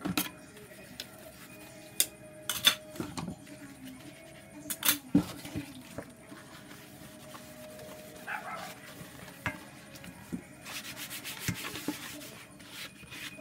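Dishes being washed by hand: a soapy sponge rubbing and scrubbing a plastic bowl over a stainless-steel basin, with a few sharp clinks and knocks of dishware. Near the end comes a fast run of scrubbing strokes.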